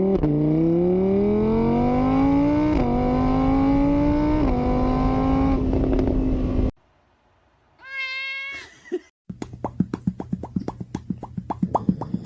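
A car engine accelerating, its pitch rising and dropping back twice as it shifts up through the gears, then cutting off suddenly. After a short silence comes a single cat meow, then a quick run of short clicks, several a second.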